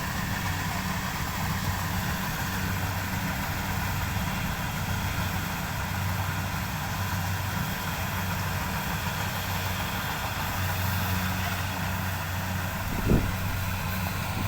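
An engine running steadily at an even idle-like hum, with a single short knock near the end.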